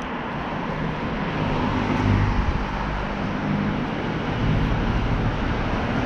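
Street traffic with a motor vehicle passing close by, its engine hum loudest about two seconds in and fading over the next few seconds.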